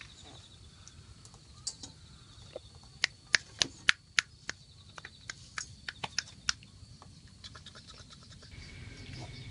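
Sharp clicks and taps from a Shikoku Ken puppy moving and mouthing at wooden boards: a cluster of loud ones about three to four seconds in, then a quicker run of lighter ones.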